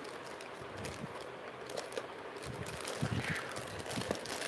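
Plastic jewellery packets being handled: scattered light clicks and crinkles, with a few soft low thumps about two and a half to three seconds in.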